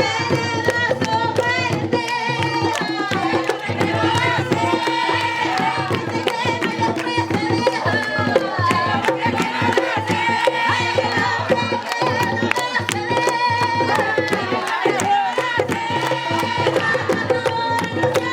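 Panamanian tamborito: hand drums beating a dense, fast rhythm with voices singing over it.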